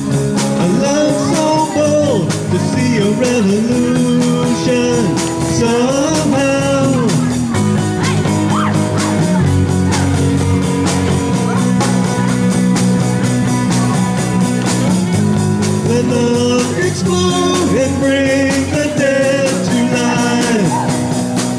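Live rock band playing a worship song on drum kit, electric guitars and bass, with a melody line bending over steady chords and beat.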